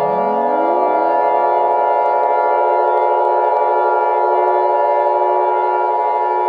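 Siren sounding several tones at once: a low tone winds up in pitch over about the first second and settles into a steady wail alongside the others.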